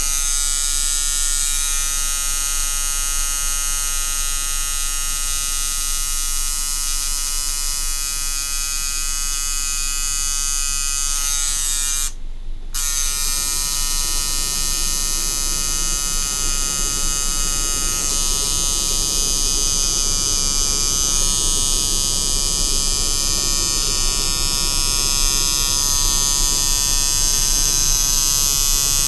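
Electric tattoo machine buzzing steadily as its needles work into skin, stopping for under a second about twelve seconds in, then buzzing on.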